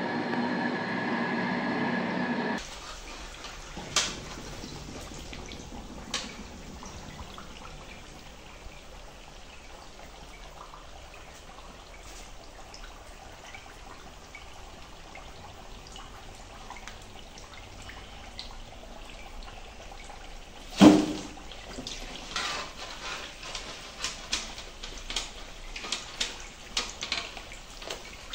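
Samosas deep-frying in a wok of hot oil, a steady sizzle, with a metal skimmer clinking and scraping against the wok as the samosas are turned and lifted: a loud knock about 21 seconds in and a quick run of clinks near the end. Before the sizzle, a louder steady hum with a fixed tone cuts off suddenly about two and a half seconds in.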